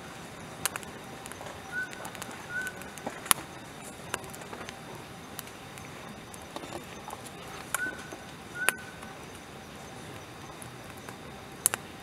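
Longan-wood campfire in a Snow Peak fire pit crackling, with irregular sharp pops, two of them much louder than the rest. Short high chirps come in two close pairs.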